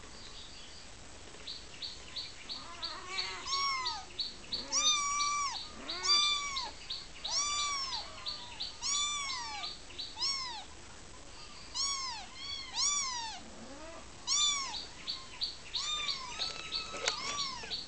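A kitten meowing over and over, about a dozen short high mews, each rising then falling in pitch, starting about three seconds in. A rapid train of faint high ticks, about seven a second, sounds behind the mews at the start and again near the end.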